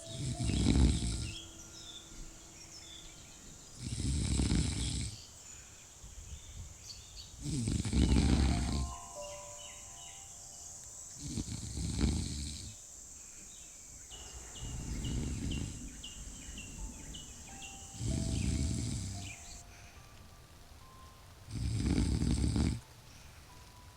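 A person snoring slowly and regularly, seven snores about three and a half seconds apart, each lasting about a second or a little more.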